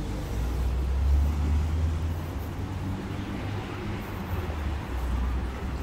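City street background noise: a steady low rumble that swells about a second in and again near the end.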